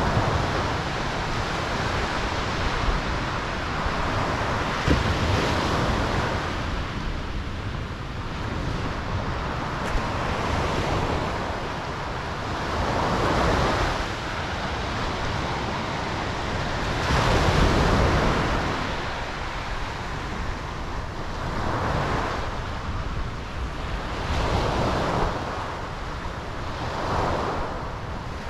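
Ocean surf breaking and washing in at night, a continuous hiss that swells with each wave every three to five seconds, the biggest surges about halfway through.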